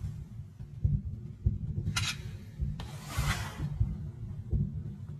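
Low, irregular rumbling and thudding of wind and handling noise on a phone microphone, with a short hiss about two seconds in and a longer hiss around three seconds in.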